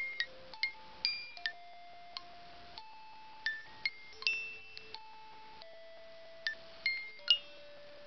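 Music box playing a slow, eerie melody: single high plinked notes, unevenly spaced, ringing and fading over longer-held lower notes.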